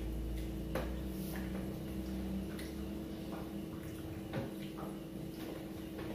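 Scattered light clicks and taps of a meal at the table, spoons and fingers on plates, about four or five in all. A steady hum lies underneath.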